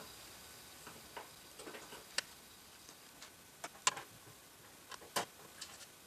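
Screwdriver backing out the metal mounting screws that hold a motherboard to the PC case's standoffs: faint, irregular clicks of the driver and screws, about half a dozen sharper ticks scattered through.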